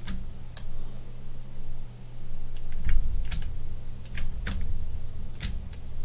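Computer keyboard keys clicking irregularly, about eight separate keystrokes, over a steady low electrical hum.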